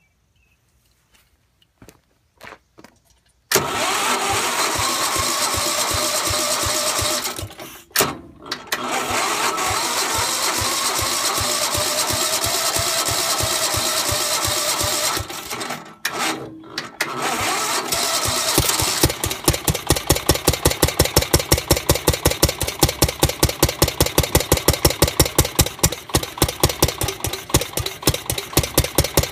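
Single-cylinder Onan NB engine of a Gravely 430, fired by a new crank-trigger electronic ignition, starting on carb cleaner sprayed into the head. It catches about three and a half seconds in and runs loudly, drops out briefly twice, then goes on as an even pulsing of about three beats a second. The owner thinks the timing may be off a hair, or that the harsh note comes from the starting fluid.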